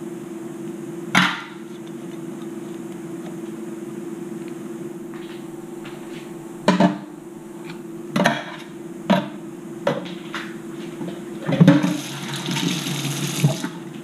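Kitchen tap running briefly near the end, after a handful of separate knocks and clunks from handling things at the counter. A steady low hum sits under it all.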